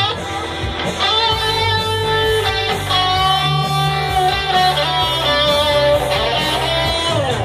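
Electric guitar, a white Les Paul Custom-style solid body, playing an improvised lead in E minor: long sustained notes, with a slide down in pitch near the end, over a low bass line.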